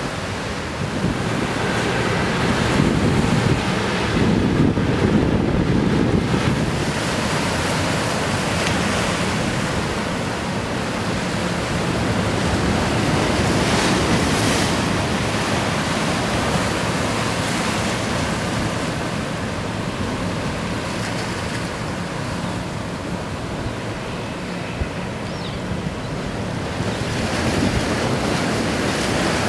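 Surf washing against a harbour breakwater, a steady rush that swells and eases, with wind buffeting the microphone.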